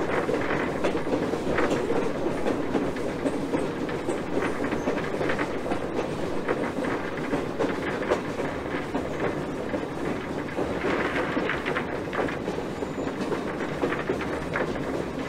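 A small 1920 steam switcher locomotive rolling along the track, heard from its front pilot: a steady rumble and rattle of wheels and running gear with irregular clicks and clacks, a little busier about eleven seconds in.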